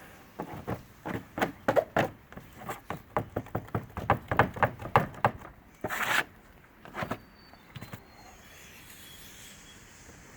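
A putty knife or spreader working thickened epoxy filler of glass microspheres and silica: a quick run of short scrapes and taps, about three or four a second, with one longer scrape about six seconds in, then the strokes stop.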